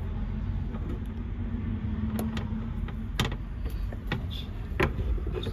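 A few separate sharp clicks and taps of metal being handled, as a handbrake cable and its retaining clip are worked on, over a steady low background hum.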